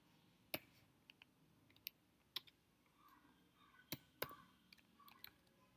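Faint typing on a computer keyboard: about a dozen separate, irregularly spaced keystrokes.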